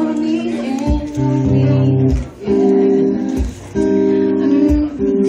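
Live acoustic guitar strumming chords in a steady rhythm, with two short breaks between chords.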